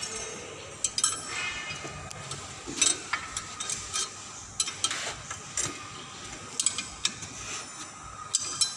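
Wrenches working the nuts on a car's wheel hub while an on-car brake disc lathe is mounted: sharp metal clicks and clinks, coming irregularly.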